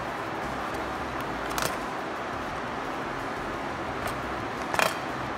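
Hand pop-rivet gun being squeezed on a blind rivet in an aluminium angle, pulling the rivet's stem: a few short, sharp metallic clicks, the loudest cluster near the end, over a steady background rush.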